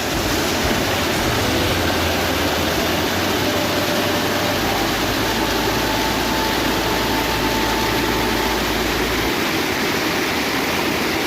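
Steady rushing of river water pouring through a dam.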